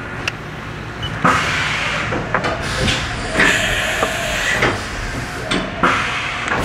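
CNC mill running with a steady hiss and scattered sharp clicks.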